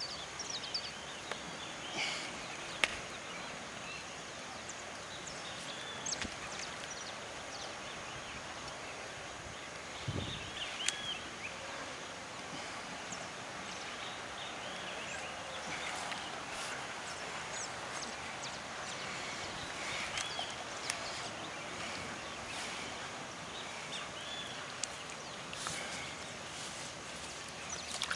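Outdoor ambience: a steady hiss with many short bird chirps scattered throughout and occasional small sharp clicks, plus a single low thump about ten seconds in.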